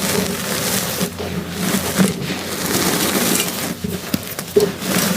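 Reformed gym chalk blocks being crushed, soft powdery crunching and crumbling that swells and fades in repeated waves.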